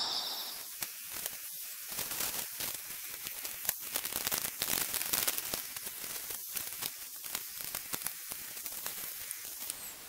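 Rustling and crackling of camping gear and fabric being handled and packed, with many quick small knocks and crackles throughout.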